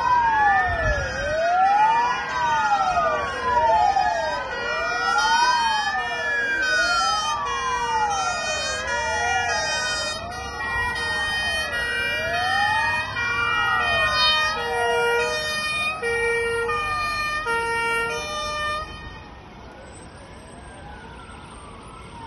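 Two emergency vehicle sirens wailing together, their rising and falling tones overlapping, each sweep taking a few seconds. A few short steady low tones join near the end, and the sirens stop about nineteen seconds in.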